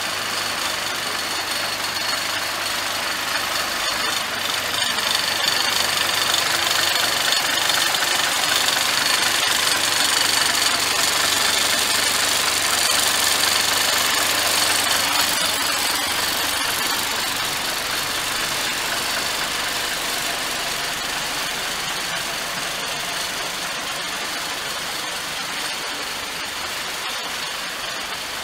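Tata truck's Cummins diesel engine idling steadily, kept running to circulate coolant during a coolant flush. It grows a little louder a few seconds in, then eases off toward the end.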